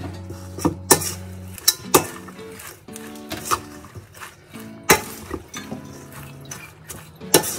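A metal spoon stirring a spinach and cheese filling in a stainless steel mixing bowl, with sharp, irregular clinks against the bowl's side, over background music.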